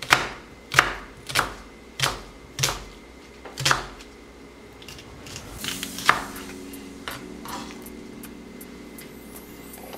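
Chef's knife slicing a red onion on a wooden cutting board: six sharp knocks of the blade through the onion onto the board in the first four seconds, then a few softer knocks and handling sounds as the slices are gathered.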